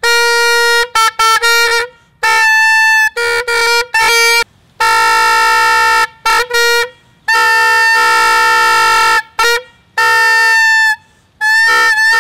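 Plastic howling horn toy blown in a string of loud toots: its stretched aluminium-foil membrane buzzes over the whistle's central tube and the long plastic horn amplifies the sound. Quick short blasts come first, then a few longer held ones, and the pitch jumps between a lower and a higher note.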